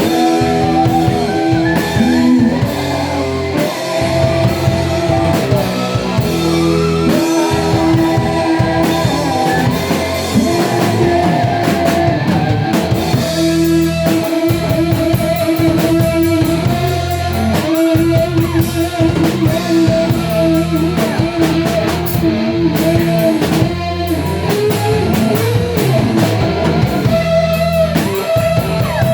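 A rock band playing live: guitar and bass holding sustained notes over a steady drum kit beat.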